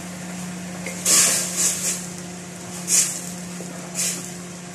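Wooden spatula stirring and scraping inside a stainless-steel pot of boiling broth: about five short scraping swishes over a steady low hum.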